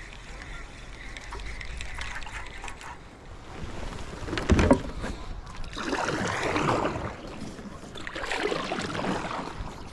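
Kayak paddle strokes: water swishing and splashing in three long surges, with one sharp knock about halfway through that is the loudest sound.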